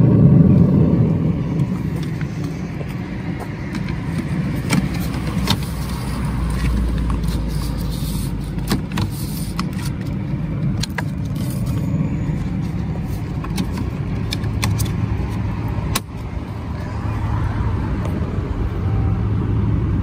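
Steady rushing of the gas flame at a Dometic RM 5380 absorber fridge's burner, loudest in the first second and then heard at the fridge's outside vent grille. It is mixed with passing road traffic, with a deeper rumble about six to nine seconds in.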